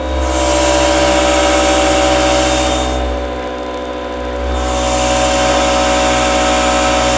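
Airbrush compressor running inside a foam-lined MDF sound-reduction box: a steady motor hum with a hissing edge. It gets louder and brighter twice, from just after the start to about three seconds in and again from about four and a half seconds, as the box lid is lifted open.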